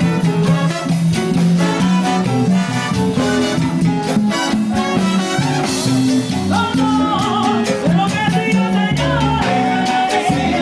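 Salsa music played by a band, with a voice singing over it in the second half.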